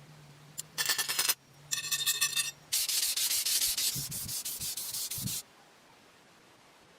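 Sanding on a metal blade in three bursts of scratchy rubbing, each longer than the last; the longest, from about three seconds in, goes in quick regular strokes, and then it stops. A low steady hum runs under the first part.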